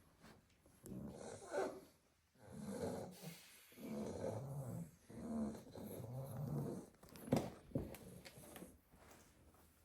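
Sleeping Staffordshire bull terrier puppies snoring: a run of snores one after another, each lasting one to two seconds. Two short sharp clicks about seven seconds in.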